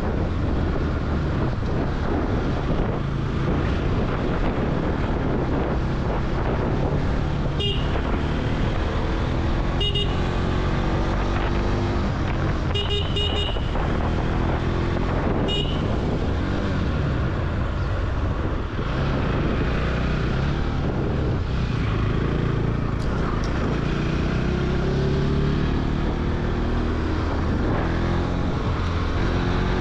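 Motorcycle engine running steadily while riding, with wind and road noise, and a few short horn toots around the middle.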